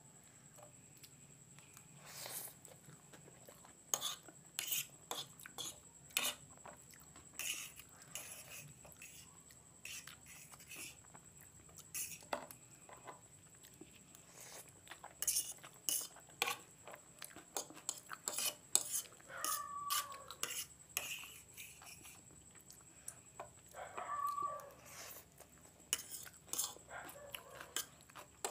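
Metal fork clicking and scraping against a plate as instant noodles are gathered up, in quick, irregular taps with a couple of brief squeaky scrapes.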